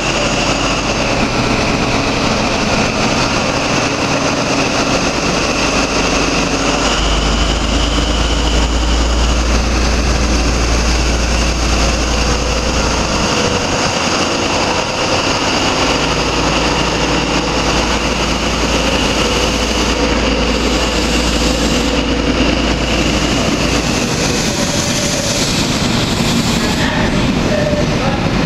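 Class 43 HST power car's diesel engine running hard as the train pulls away, with a steady high whine over a low drone. Near the end the drone drops back as the Mk3 coaches roll past.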